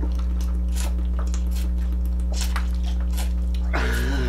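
Eating sounds: noodles slurped and chewed, with a utensil clicking against a plastic bowl, over a steady low electrical hum. A short groan-like vocal sound near the end.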